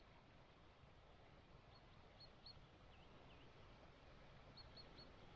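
Near silence with faint, high bird chirps, coming in quick runs of three short notes, twice, with two lower dipping notes between them.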